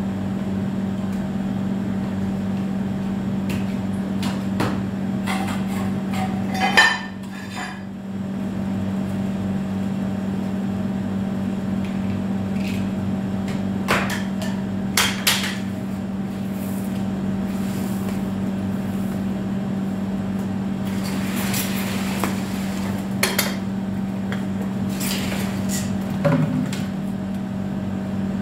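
Metal frame poles of a portable above-ground swimming pool knocking and clinking now and then as they are fitted together, over a steady low machine hum that cuts out briefly about seven seconds in.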